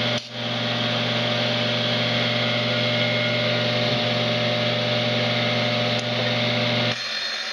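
Electric tile-cutting tool running steadily while notching a wall tile, a constant motor hum with a hiss of cutting. The low hum cuts out abruptly about seven seconds in.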